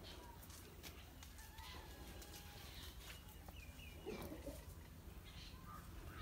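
Faint clucking of domestic chickens, loudest about four seconds in, with a few high bird chirps just before it.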